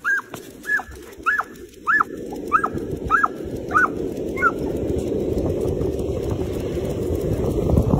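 A dog giving a run of short, high-pitched excited yelps, about eight of them roughly half a second apart, which die away after about four and a half seconds. Under them a rumble of running footsteps and wind on the microphone builds steadily louder.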